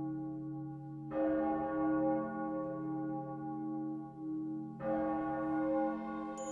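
Slow soundtrack music of ringing bell tones, each stroke sustaining with a long ring; new strokes come in about a second in and again just before five seconds.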